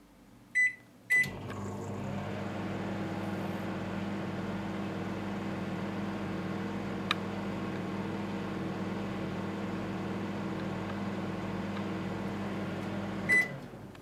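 LG microwave oven keypad beeping twice as it is started, then the oven running with a steady electrical hum. Near the end it beeps once and the hum stops, leaving time still on the display.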